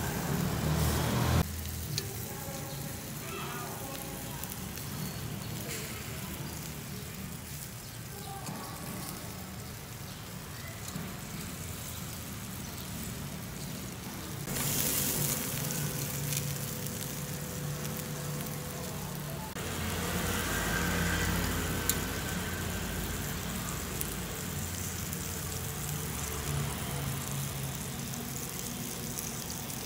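Pork chops sizzling on a hot grill grate, fat spitting steadily. The sizzle turns louder and brighter for about five seconds midway, then settles back.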